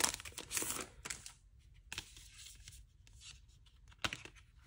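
Paper merchandise packaging rustling as it is handled and opened, mostly in the first second and a half, then a few light taps and clicks.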